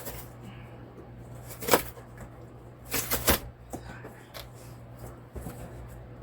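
A cardboard shipping box being pried open by hand, giving a few sharp cracks and rustles of tape and flaps. The loudest crack comes about a second and a half in and two more come close together around three seconds in.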